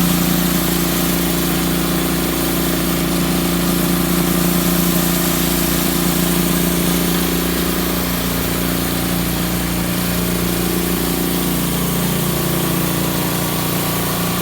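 Pressure washer running steadily with a floor-cleaning attachment, a constant motor hum under a steady hiss. A couple of its tones waver slightly about eight seconds in.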